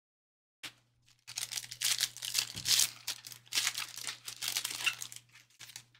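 Panini Select trading card pack wrapper being torn open and crinkled by hand: a brief crackle about half a second in, then a run of tearing and crinkling lasting about four seconds.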